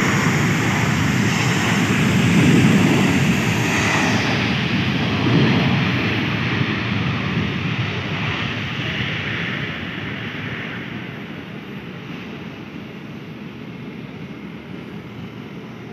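Jet airliner engines running with a loud, steady rushing noise that fades away gradually over the second half.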